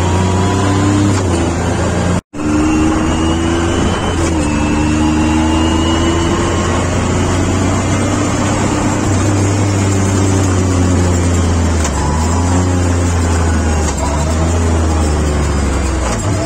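Yamaha YXZ1000R side-by-side's three-cylinder engine pulling along a rough dirt track, heard from inside the open cab. Its note rises and falls with the throttle over a steady rush of wind and gravel noise.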